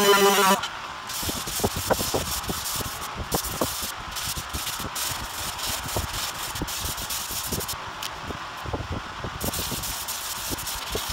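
A power sander's whine cuts off about half a second in. Then comes the rough scratching of a sanding block rubbed by hand in short, irregular strokes over body filler on a car door.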